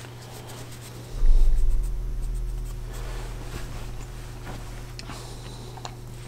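A cloth rag rubbing and wiping excess gun oil off a Glock 43X barrel, with faint clicks as the metal is handled. About a second in, a sudden low rumble starts and fades over a couple of seconds, over a steady low hum.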